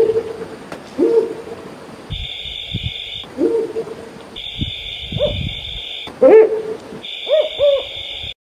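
Mottled wood owl calling: a series of loud hoots, each note rising and then falling in pitch, some running on into a held tone, with a quick double note near the end. Behind the calls, a high steady buzz starts and stops abruptly in several stretches.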